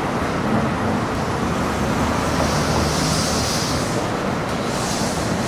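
Steady city street traffic noise as an MBTA Neoplan electric trolleybus and cars drive past, with a brief rise of hiss about three seconds in.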